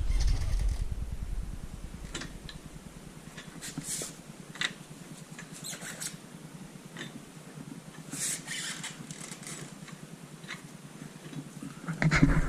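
Scattered light clicks and scrapes from an ATV's front axles and drivetrain as a wheel is turned by hand; at full suspension drop the axles bind. A low rumble sits under the first second and comes back near the end.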